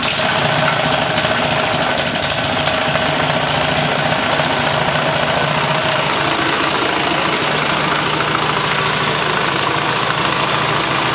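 Small four-stroke engine, just pull-started, running steadily and loudly with no engine oil in its crankcase, relying on a PTFE engine treatment for lubrication.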